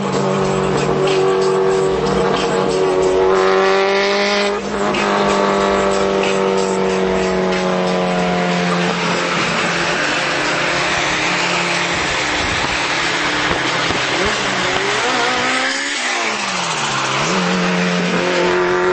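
Honda Civic's four-cylinder engine revving hard, the pitch climbing and then dropping sharply as it shifts gear, then climbing again, with another drop and climb near the end.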